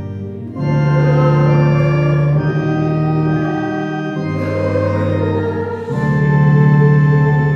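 Church organ playing slow, held chords over deep bass notes, the chord changing every second or two.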